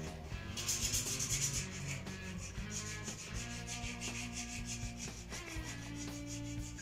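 Hand file rasping in repeated strokes against a motorcycle's engine casing, over background music.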